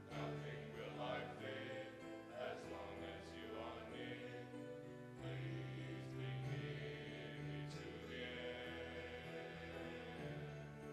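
Music with sustained held chords and a melody line moving over them; the chord changes about halfway through.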